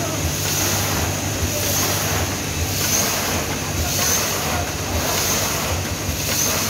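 Vertical form-fill-seal pouch-packing machine with a cup filler running, packing pulses: a steady low machine hum with a hiss that swells about once every second and a bit, one swell per packing cycle.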